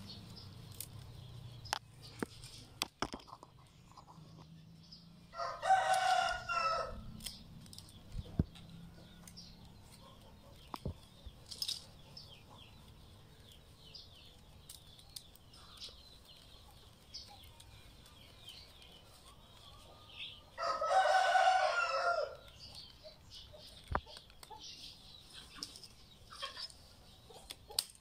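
A rooster crowing twice, once about five seconds in and again about fifteen seconds later, each crow about two seconds long. Between the crows come faint scattered clicks and rustles of rattan strands being woven into a basket.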